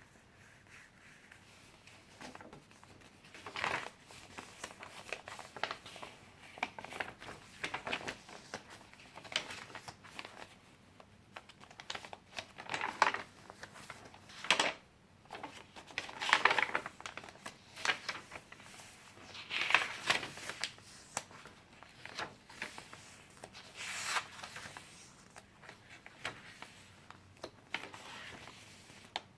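Pages of a handmade paper junk journal being turned and handled: short paper rustles and crinkles every few seconds, with quieter handling in between.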